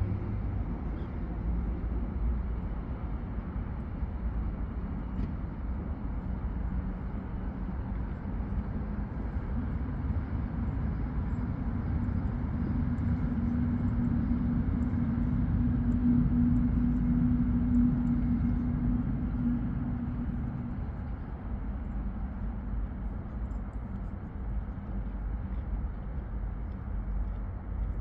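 Distant motor traffic: a low, steady rumble, with an engine hum that swells about halfway through and fades away a few seconds later.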